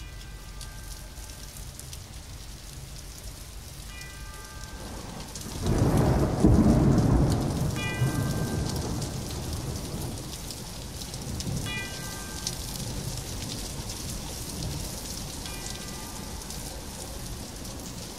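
Steady rain falling, with a loud rumble of thunder about six seconds in that slowly fades away. A short group of high tones repeats about every four seconds.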